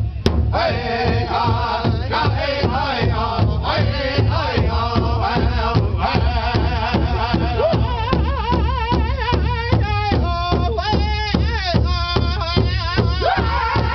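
Powwow big drum struck in a steady, even beat by several drummers while a group of men sing a chant together. About halfway through, the singing climbs higher and wavers.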